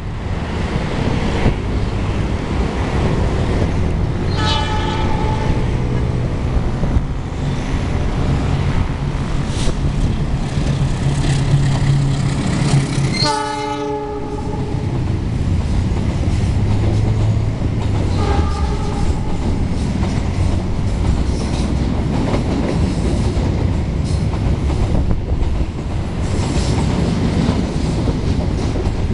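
Freight train hauled by a CC206 diesel-electric locomotive passing: the locomotive's engine running low and steady, its horn sounding about four seconds in, again more loudly around the middle and briefly once more soon after, then the long line of loaded flat wagons rolling and clattering over the rail joints.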